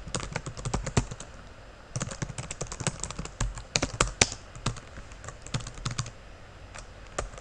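Typing on a computer keyboard: bursts of rapid keystrokes separated by short pauses, with a few single key presses near the end.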